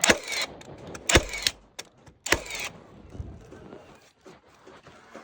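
Three sharp knocks about a second apart, the first and last each trailed by a brief hiss, then faint scattered knocking.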